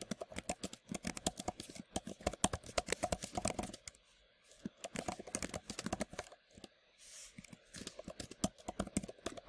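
Typing on a computer keyboard: quick runs of key clicks, with a short pause a little before halfway and slower, sparser keystrokes near the end.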